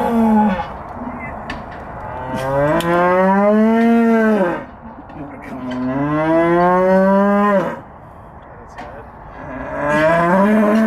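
Cow bellowing in labour as her calf is pulled with a calf jack: a call ends in the first half-second, then three long bellows of about two seconds each, every one rising and then falling in pitch.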